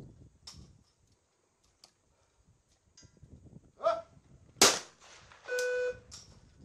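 A shooter's short shouted call for the target, then about half a second later a single loud 12-gauge trap shotgun shot, followed by a steady electronic buzzer tone lasting about half a second.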